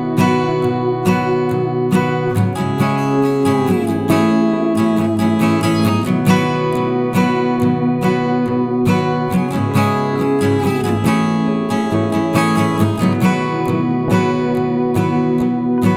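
Background music led by strummed and plucked acoustic guitar, with sliding notes.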